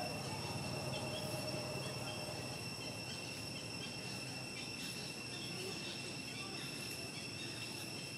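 Steady high-pitched drone of insects in the forest, unbroken throughout.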